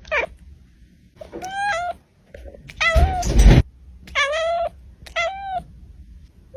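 Domestic cat meowing repeatedly: a short cry right at the start, then three drawn-out meows spaced about a second apart. A louder, harsh, noisy outburst comes about three seconds in.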